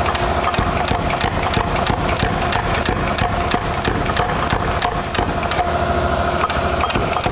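Power hammer striking a red-hot steel bar in rapid, even blows, several a second, over a steady motor hum, drawing the bar out into a taper.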